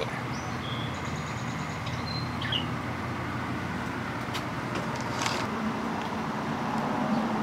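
A steady low mechanical drone of a motor running, with a few short high chirps in the first few seconds and a few faint clicks.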